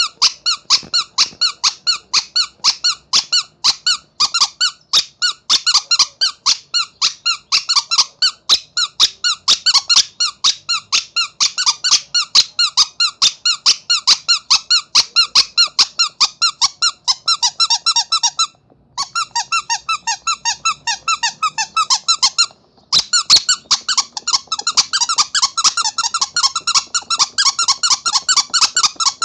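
Rubber monkey squeaky toy squeezed over and over, about four high-pitched squeaks a second, with two short pauses in the second half.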